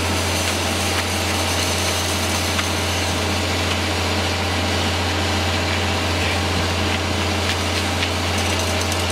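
Concrete pump truck's diesel engine running steadily while pumping concrete, a strong, even low drone with no break.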